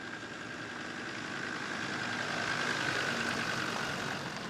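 Land Rover 4x4 driving slowly past close by, its engine noise swelling to its loudest about three seconds in and then easing off, with a steady high whine throughout.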